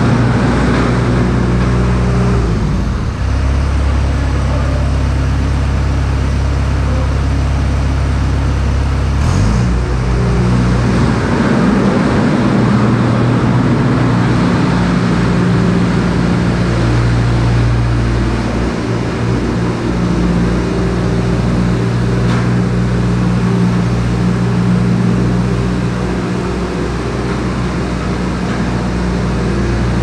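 Bobcat S250 skid steer's diesel engine running under throttle while it works. The engine note drops to a lower steady pitch for several seconds about three seconds in, then picks back up and holds steady.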